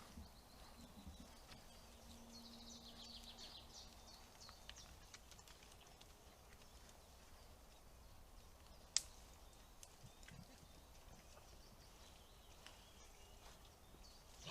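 Near silence outdoors, broken by a quick run of faint high bird chirps a couple of seconds in and a single sharp click about nine seconds in.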